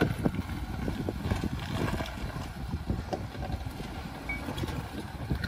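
Jeep Wrangler driving over a rough dirt trail: a steady low rumble with irregular thumps and jolts, and wind buffeting the microphone.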